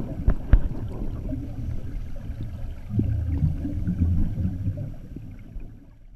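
Underwater sound through a GoPro's housing: a low, muffled rumble and bubbling of scuba divers' exhaled air, with a couple of sharp knocks in the first second. It fades out near the end.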